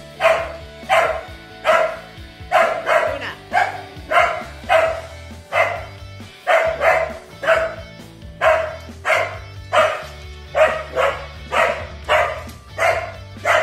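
Small dog barking repeatedly, about a bark and a half a second, alert barking at a mail truck outside the house. Background music plays underneath.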